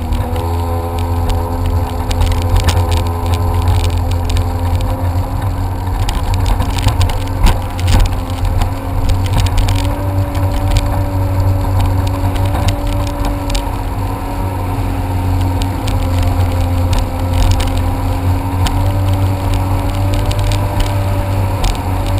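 Jet ski engine running steadily under way, its pitch holding nearly level with a slight rise about halfway through, over a heavy low rumble. Scattered sharp clicks or slaps come between about six and nine seconds in.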